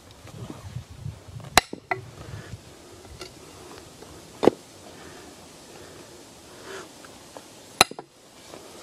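Three sharp axe blows into a freshly dug plum-wood stump, about three seconds apart, as the stump is split into bowl blanks. The middle blow is the loudest.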